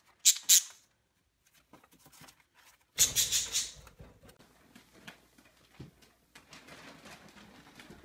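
Pet budgerigars chirping: two short, sharp chirps near the start, then a louder run of chirps about three seconds in.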